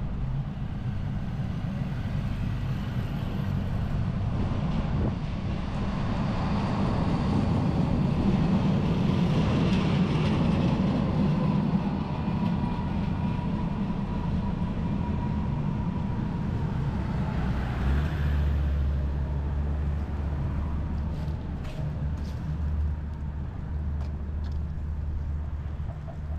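Street traffic with an electric tram passing, its motor whine a thin steady tone that slowly falls in pitch over several seconds in the middle, above a constant low hum of vehicles that grows deeper in the second half.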